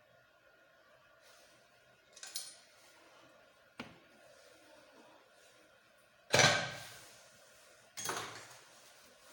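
Metal tools and engine parts being handled on a workbench: four separate metallic knocks and clanks, the loudest about two-thirds of the way through with a short ringing decay.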